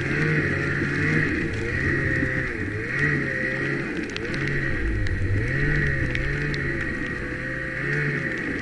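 Snowmobile engine running under way, its pitch rising and falling as the throttle is worked through deep snow, with a steady high whine over it.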